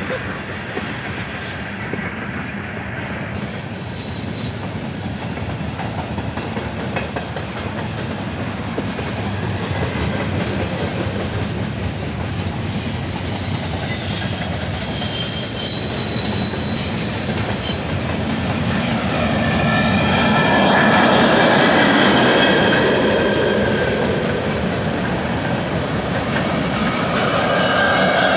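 Freight train cars rolling past steadily, with wheels squealing in high tones that come and go in the second half, and louder near the end.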